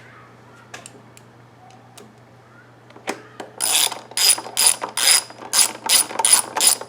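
Ratchet wrench clicking as it runs down the 10mm nuts holding the recoil starter on a Kohler small engine. A few faint taps come first; about three and a half seconds in the ratcheting starts, in quick back-and-forth strokes of about three a second.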